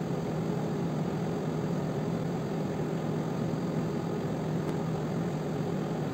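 Steady low mechanical hum, unchanging, with nothing else standing out above it.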